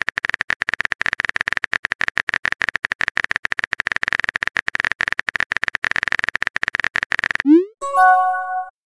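Texting-app sound effects: rapid, even clicking of a simulated keyboard typing for about seven seconds, then a short rising whoosh and a bright chime as a new message pops up.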